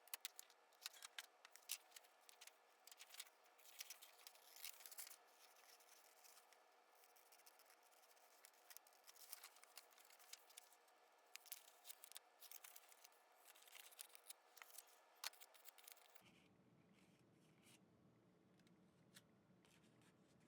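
Faint snipping and rustling of scissors cutting out a paper pattern piece. The snips stop about 16 seconds in, and a steady low hum takes over.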